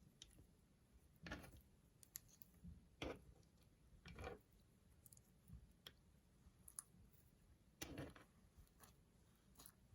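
Slime being worked by hand: four soft, short squelching crackles spread over the stretch, with faint small clicks between them.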